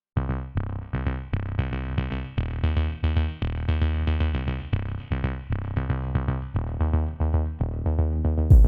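Background electronic music with a steady beat of synthesizer notes over a deep bass. It starts abruptly after silence, with a heavier hit near the end.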